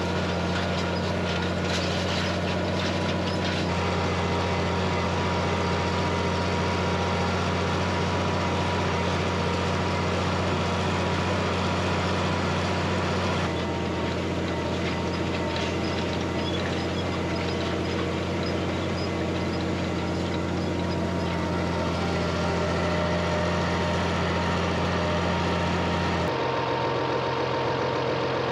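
Farm tractor engine running steadily at a constant speed. The sound shifts abruptly three times, like cuts between clips of the machine at work.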